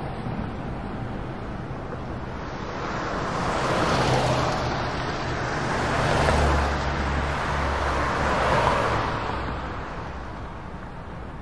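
Road traffic passing, swelling and fading about three times, with a low engine drone in the middle from a TTC city bus approaching along the road.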